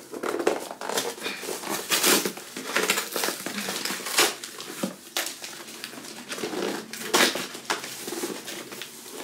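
Packaging being torn open and handled: irregular crinkling and rustling with sharper crunches about two, four and seven seconds in.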